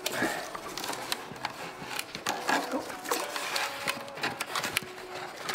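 Cardboard template rustling and scraping against the underside of a car's transmission tunnel as it is pushed and worked into place by hand, with irregular crinkles and light knocks.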